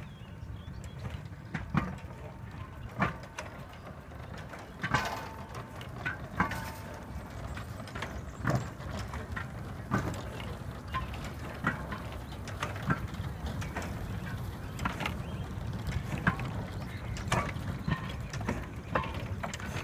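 Replica of William Hedley's 1813 Wylam steam locomotive running slowly with its wagons, its rods and wheels giving irregular metallic knocks about once a second over a steady low rumble.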